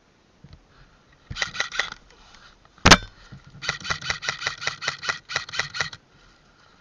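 Airsoft gun firing in quick shots: a short string of four or five, one much louder sharp crack about three seconds in, then a string of about fourteen shots at roughly six a second.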